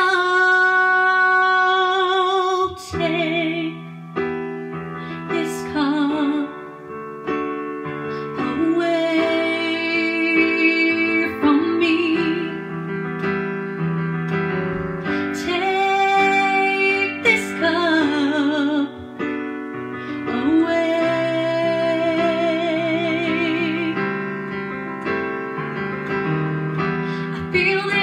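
A woman singing a worship song, with vibrato on long held notes, accompanying herself with piano chords on a Yamaha digital keyboard.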